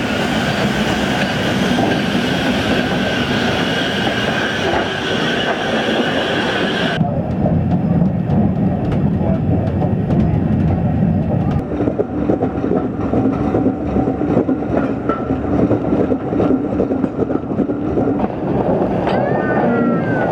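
Steam train running on the rails, a steady loud running noise. About seven seconds in the sound changes abruptly to a rougher rumble, as at a cut between recordings. Near the end a few short squeals glide up and down.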